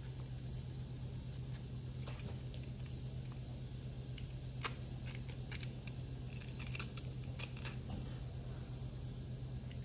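Small clicks and rustles of a harness strap being fitted through a plastic saddle by hand, busiest between about four and a half and eight seconds in, over a steady low hum.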